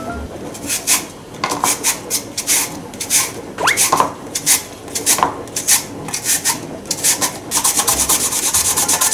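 Daikon radish being shredded on a handheld julienne slicer (tsuma-kiri) over a bowl: a run of rasping strokes, two or three a second, quickening to rapid short strokes near the end.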